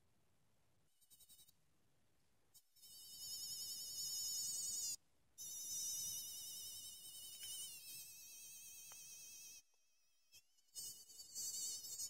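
Light-up toy cicada sounding its electronic cicada call: a high, wavering buzz in three bursts, the middle one longest, each dipping slightly in pitch as it goes.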